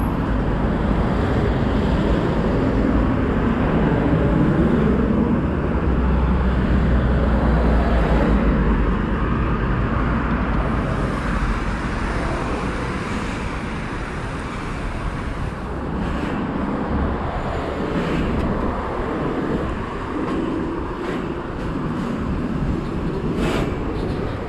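Steady road traffic: cars and light trucks passing on a busy multi-lane road. A deeper rumble swells for several seconds about a quarter of the way in.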